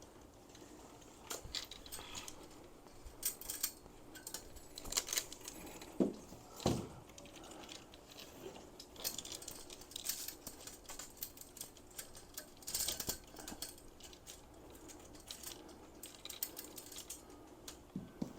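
Light metal hanging chain and hooks clinking in scattered short jingles and clicks as they are handled, with a couple of duller knocks about six seconds in.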